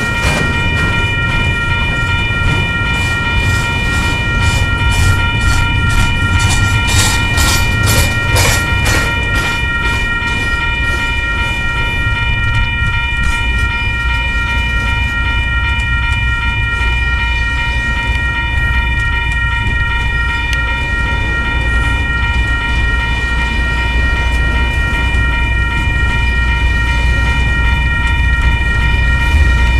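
Double-stack intermodal well cars rolling past, with a regular clickety-clack of wheels over the first several seconds and a steady high-pitched whine throughout. A deep diesel rumble builds toward the end as a GE Evolution Series distributed-power locomotive approaches mid-train.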